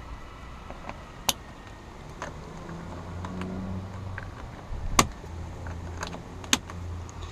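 Three sharp clicks with a few fainter ticks, from handling parts and tools inside an SUV. A low hum comes in about two-thirds of the way through.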